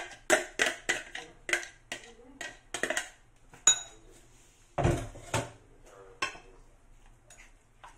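Metal spoon knocking and scraping against a plastic blender jar and a ceramic bowl as blended tomato-and-chili paste is emptied out: a quick run of sharp knocks, one ringing clink, then a few heavier knocks about five and six seconds in.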